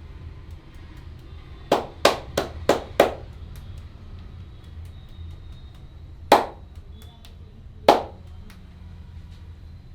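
Sharp slaps of a barber's hands striking the body in a massage: five quick strikes in just over a second, then two single slaps a few seconds apart.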